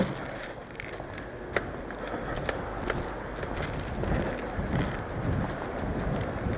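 One sharp loud click, then steady rustling and clatter with scattered clicks and low thuds: the movement noise of an airsoft player's gear against a head-mounted microphone.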